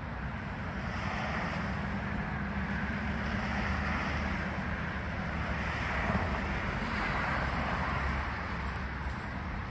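Steady rushing outdoor noise over a low rumble, swelling a little after about a second and easing near the end.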